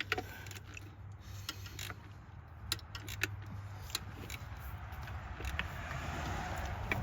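Scattered light clicks and clinks of hand tools and parts being handled in an engine bay, over a faint steady low hum.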